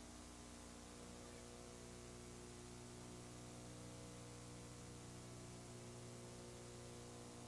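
Near silence: a faint, steady electrical hum with hiss, unchanging throughout.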